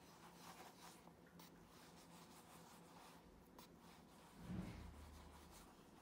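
Faint rubbing of a hand over a leather shoe upper, with a soft low thump about three-quarters of the way in.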